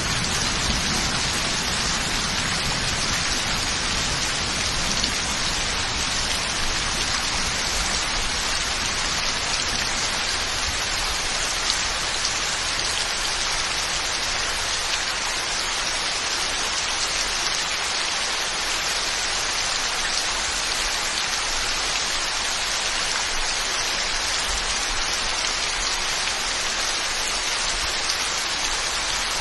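Heavy rain falling steadily in a dense, even hiss. A low rumble of thunder fades out over the first few seconds.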